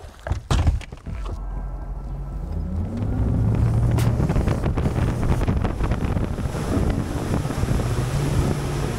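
A few clunks as a bow-mounted trolling motor is pulled up and stowed, then a bass boat's outboard motor speeds up, its pitch rising about two to three seconds in, and runs steadily under the rush of wind and water as the boat travels fast.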